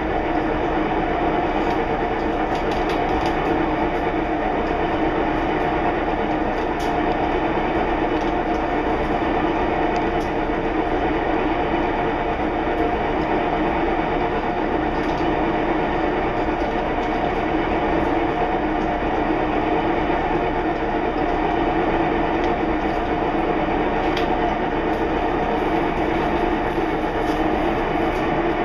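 Steady mechanical rumble and hum from a running household appliance, with a few faint light clicks.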